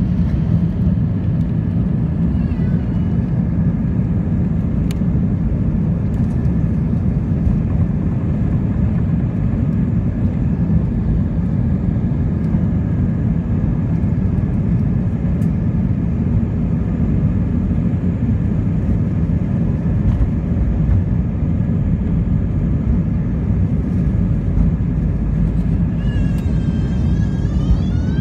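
Steady low rumble of a jet airliner's engines and airframe, heard inside the cabin as the plane rolls on the runway. A brief high whining tone comes in near the end.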